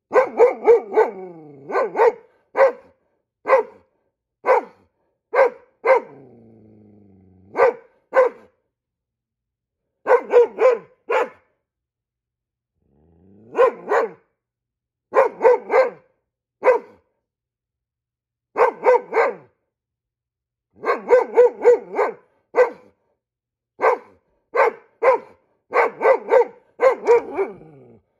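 Goldendoodle alert-barking at squirrels outside the window: loud barks in quick volleys of one to four, with short pauses between. A few low, drawn-out growls slide up or down in pitch and lead into some of the volleys.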